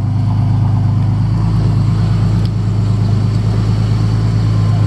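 2010 Ford Mustang with an aftermarket exhaust, its engine idling steadily with a deep, even low hum.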